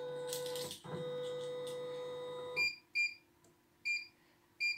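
CNY E900 embroidery machine's embroidery unit driving the hoop into position, its motors whirring steadily for about two and a half seconds and then stopping. Four short electronic beeps follow from the machine's touchscreen as it is pressed.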